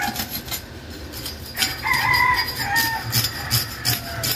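Scales being scraped off a large fish with a metal scaler on a wooden board: a quick run of short, rasping strokes. Chickens call in the background, most plainly about two seconds in.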